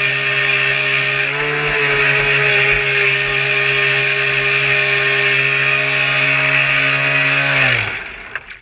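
Radio-controlled boat's motor running at a steady high, buzzing pitch. Near the end it winds down, its pitch falling as it fades out.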